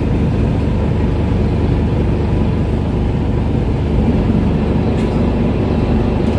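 Pasig River ferry's engine running steadily while the boat is under way, a loud, even low drone heard from inside the passenger cabin.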